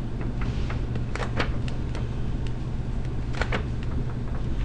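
Marker pen writing on paper: a string of short scratchy strokes over a steady low hum.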